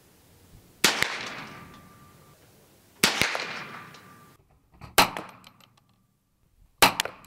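Four .22 LR shots from a Ruger 10/22 takedown rifle, about two seconds apart, each a sharp crack. The first two trail off in a long echo with a faint ringing tone under it.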